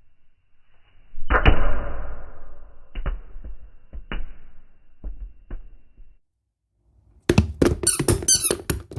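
A rubber duck toy squeezed and quacking, the sound slowed down so the squeak becomes a drawn-out tone sliding downward after a sharp onset about a second in. A few separate knocks follow, and near the end a rapid burst of clicks with high wavering tones.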